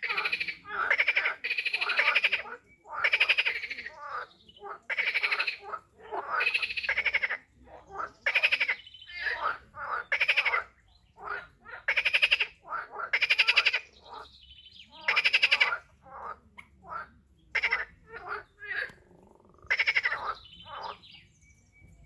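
Frogs calling in a pond: a run of repeated pulsed croaks, each under a second long, with short pauses between them.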